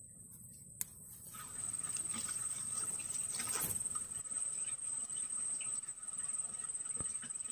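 Insects trilling steadily at a high pitch, coming in about a second in, with a sharp click just before.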